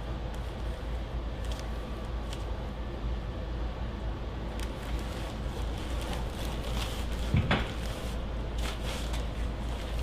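A single sharp pop of a neck joint cracking during a chiropractic neck adjustment, about seven seconds in, amid soft rustling of hands and clothing over a steady low hum.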